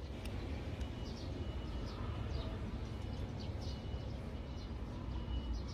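Birds calling outdoors in short repeated downward chirps, with a thin high whistle now and then, over a low steady rumble. A couple of faint clicks sound in the first second.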